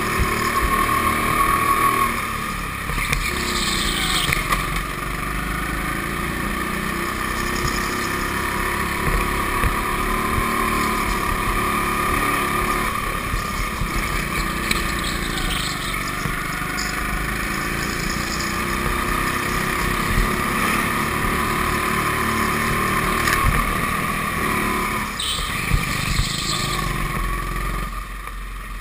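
Go-kart motor running steadily at speed, heard from on board, its whine rising and falling slightly as the kart goes through the corners. A few short high-pitched squeaks come through, around four seconds in, midway and near the end.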